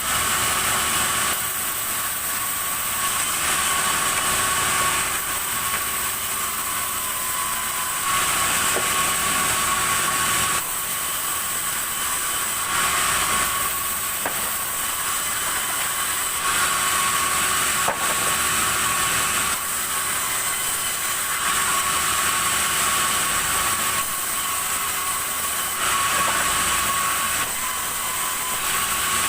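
Sawmill saw cutting red hardwood: a steady, high-pitched mechanical whine with a hiss that swells and eases every two or three seconds as the cut goes on.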